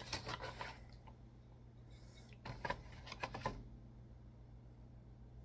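Faint small clicks and rattles of hands handling the little screw and parts of a miniature die-cast model gun's display stand, in two short spells: one at the start and another about two and a half seconds in.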